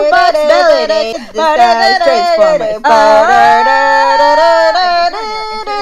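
A person singing: the pitch slides and bends, with a long held note in the middle.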